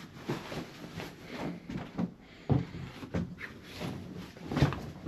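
Handling noises at a bed: a run of knocks and thumps with some rustling between them, the loudest thumps about two and a half seconds in and again near the end.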